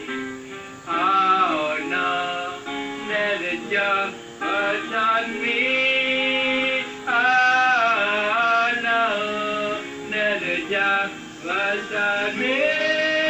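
A man singing solo, accompanying himself on an acoustic guitar, with several long held vocal notes.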